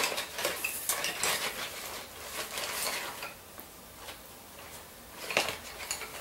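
Crayons and colored pencils clattering against each other as a hand rummages through a bag of them: a quick run of clicks and rattles for the first few seconds, a quieter spell, then another short clatter just past five seconds in.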